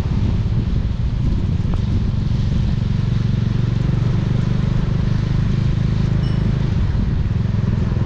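Bajaj Dominar 400's single-cylinder engine and exhaust running steadily as the motorcycle cruises, heard from the rider's position.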